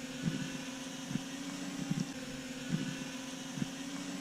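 Holy Stone HS720 quadcopter's propellers humming steadily as it hovers low while landing under return-to-home.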